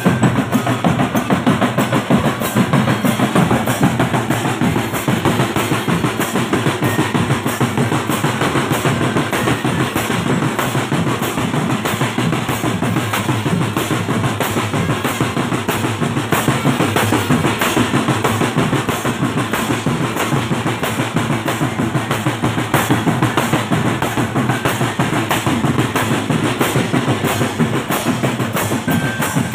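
Marching drumband playing a steady, fast drum beat, with snare and bass drums driving the rhythm.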